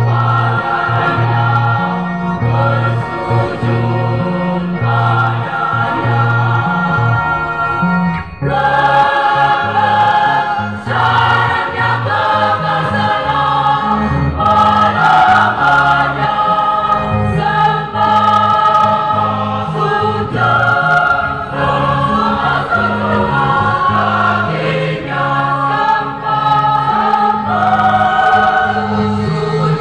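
Mixed church choir singing an Indonesian hymn with guitar accompaniment, the low guitar notes changing beneath the voices. The singing grows fuller and louder about eight seconds in.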